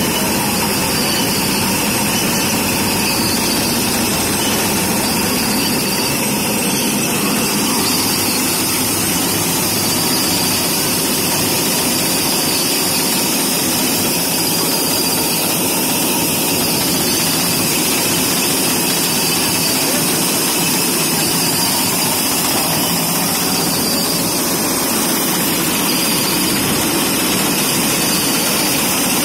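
Tractor engine running steadily under load, driving a cotton ginning machine through its PTO shaft and belt-driven pulleys.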